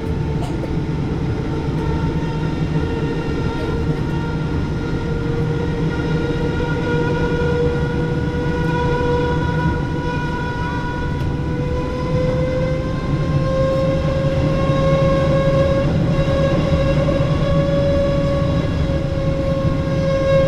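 Inside the cabin of a Japan Airlines Boeing 777-300, a steady whine with several overtones rises slowly in pitch, louder in its second half, over the aircraft's low rumble. The uploader calls it an unusual noise never heard before.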